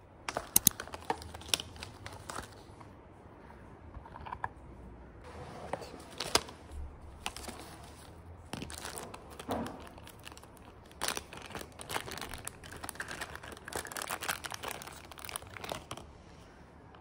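Clear plastic bags and small cardboard boxes being handled and unwrapped by hand: irregular crinkling and rustling with scattered clicks and taps.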